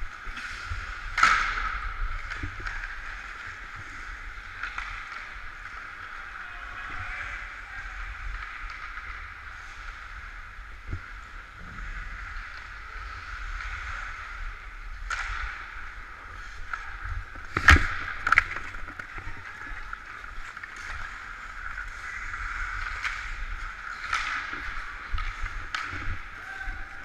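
Ice skate blades scraping and carving on the rink ice, a steady hiss picked up by a body-worn camera while skating, with a low rumble of movement on the microphone. A few sharp knocks cut through, the loudest about 18 seconds in, with another just after.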